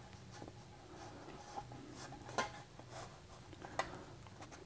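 Faint rubbing and a few light ticks from fingers pressing adhesive-backed foam gasket tape onto the edge of a 3D-printed plastic mold piece.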